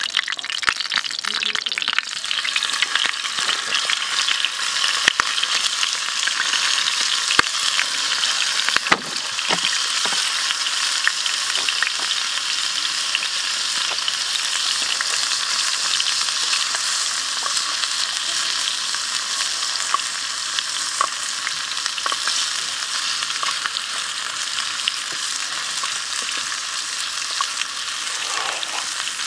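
Hot oil sizzling and crackling in a small square frying pan over a wood fire as raw pork rib pieces fry in it. The sizzle grows louder about two seconds in and again around nine seconds, as the rib pieces go into the pan.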